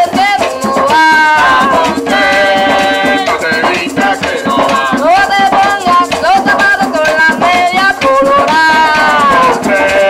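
Live Puerto Rican bomba music: a singer holds long sung notes over barrel drums and a steadily shaken maraca.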